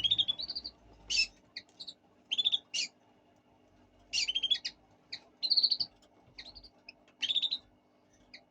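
Fischer's lovebirds chirping: short, sharp, high chirps in quick clusters, one burst every second or so.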